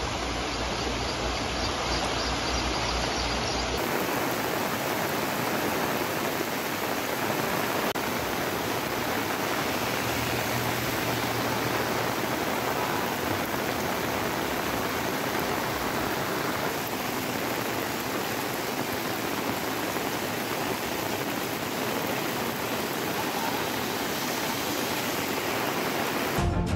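Steady rushing noise of water. About four seconds in it turns brighter and hissier, with less low rumble.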